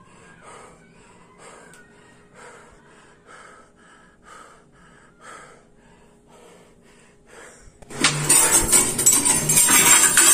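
Soft, quick breathing, about two breaths a second, from the person holding the phone. About 8 s in, a sudden loud burst of harsh noise as the recording cuts out.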